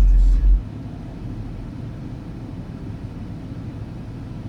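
Deep sub-bass from a ported car subwoofer box that cuts off suddenly about half a second in, followed by a steady low rumble.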